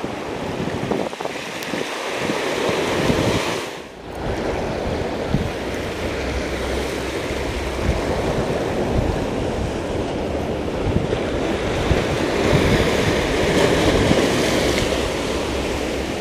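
Surf washing over the rocks and concrete tetrapods of a seaside breakwater, a steady rushing noise, with wind buffeting the microphone; the noise briefly drops away about four seconds in.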